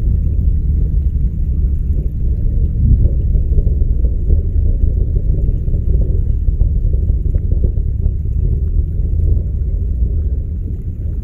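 Distant rumble of a SpaceX Falcon 9's first-stage engines during ascent: a steady, deep crackling rumble, easing a little near the end.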